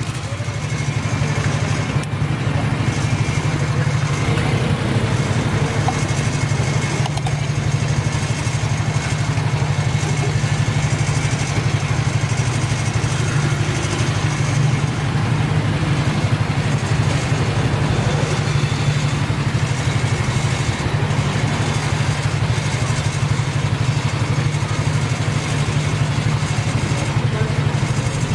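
A small engine idling steadily, a low, even drone with a fast pulse, over general street noise.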